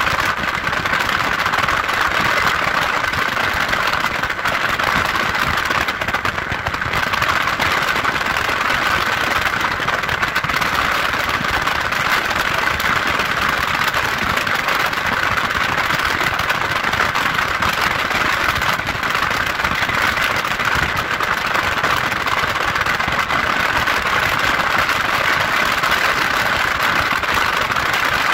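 Steady road noise of a car driving on a wet road: tyre hiss and engine noise, even throughout with no changes.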